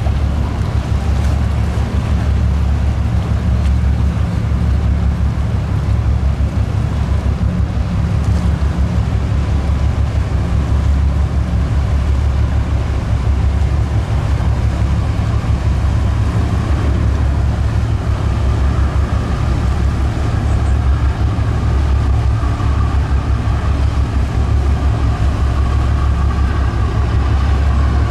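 A 38 m harbour tug's diesel engines running under way at speed, a steady low rumble over the rush of its bow wave. In the second half a higher engine tone rises above it as the tug comes closest.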